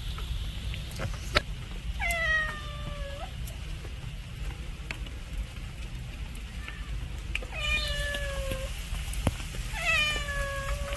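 A cat meowing three times. Each meow lasts about a second, slides down in pitch at the start and then holds steady.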